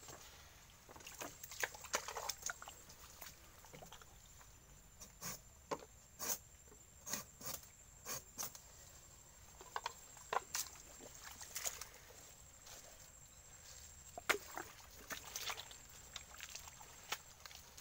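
Irregular clicks, knocks and small sloshes of nipa palm tapping by hand: plastic sap-collecting bottles being handled and a knife worked at the palm stalks, over a thin steady high tone.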